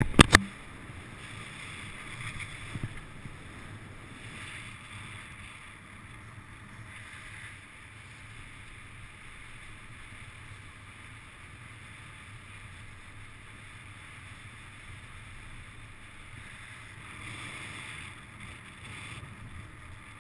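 Steady wind rush on the microphone of a camera riding up a chairlift, with two sharp clicks right at the start.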